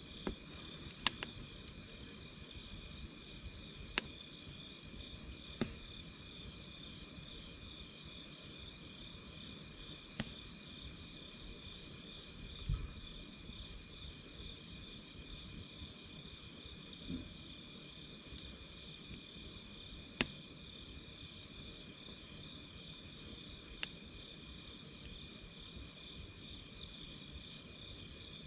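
Wood campfire crackling with scattered sharp pops, over a steady, rapidly pulsing high chirping of insects.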